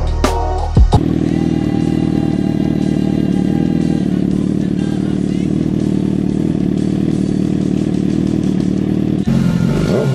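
Music with drums cuts off about a second in, then a Suzuki GSX-R1000 K9's inline-four idles steadily through an SC Project CRT carbon slip-on exhaust. Near the end the throttle is blipped and the revs begin to rise.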